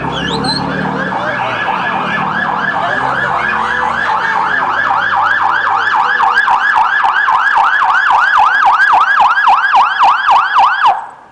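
Ambulance siren in a rapid yelp, rising and falling about four times a second, then cutting off near the end.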